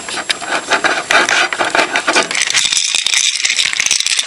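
Glass Mason jar with its lid locked on by a Microsaver laptop cable lock, rattling as it is pulled and shaken: a dense run of clicks and knocks, showing the lid holds fast.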